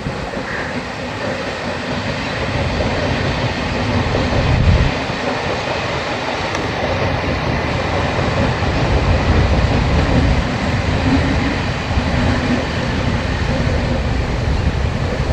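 A train running past close by: a loud, steady rumble of wheels on the rails.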